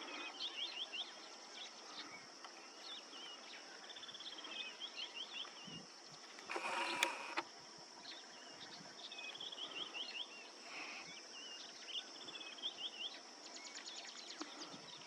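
Wetland ambience: small birds chirping in short repeated phrases over a steady, high-pitched insect drone. A brief louder noise comes about seven seconds in.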